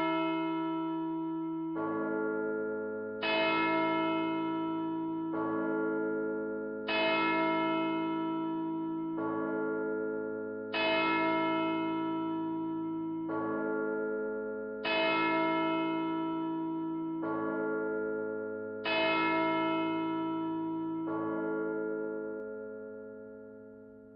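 A high and a low church bell rung alternately in a slow ding-dong, a stroke about every two seconds, each one ringing on under the next, with hall reverb. The last low stroke dies away over the final few seconds.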